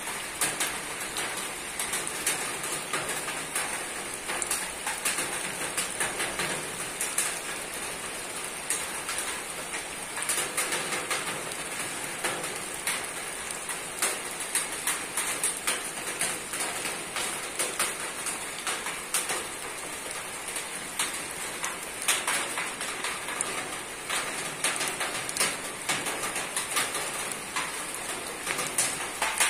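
Rain falling on a roof: a steady patter made up of many individual drops ticking sharply.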